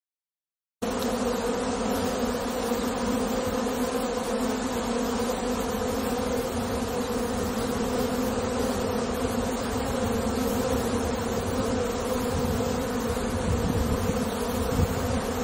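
A colony of honey bees buzzing together in a steady low hum that starts abruptly about a second in.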